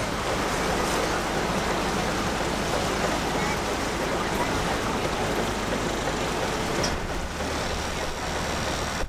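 Small motor launch under way: a steady engine hum with water rushing along the hull. The engine's low hum grows stronger about seven seconds in.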